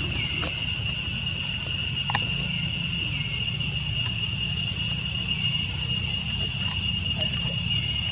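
Steady high-pitched drone of insects, with faint short falling chirps every couple of seconds.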